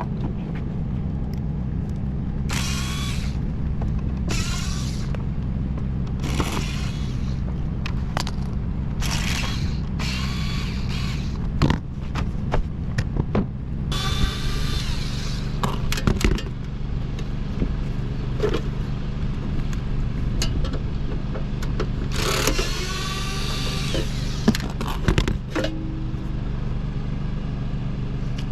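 A machine hums steadily throughout, with a string of short, high scraping or squealing sounds on top of it, one lasting about two seconds.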